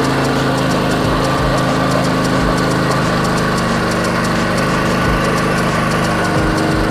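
Small engine of a home-built generator running steadily at idle, turning the belt-driven dynamo that feeds the inverter.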